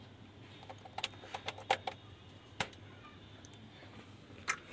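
A series of small sharp clicks and clacks, about eight of them, bunched in the middle with one more near the end, as an HDMI cable plug is handled at the rear-panel HDMI input sockets of a Denon AVR-X1600H receiver. A faint low hum runs underneath.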